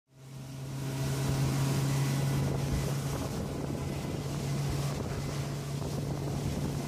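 Motorboat engine running at a steady low hum while underway, with wind noise on the microphone over it. The sound fades in over the first second.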